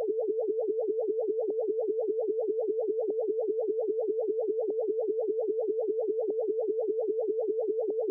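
Electronic synthesizer drone: one steady mid-pitched note with an even, fast pulse of about five beats a second.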